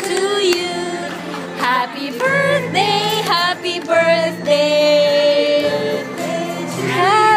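Singing: a slow melody with long held and sliding notes, carried by a woman's voice over a low steady accompaniment.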